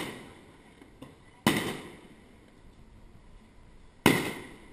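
Aerial fireworks shells bursting: two sharp bangs about two and a half seconds apart, each dying away over half a second or so, with the tail of an earlier bang fading at the start.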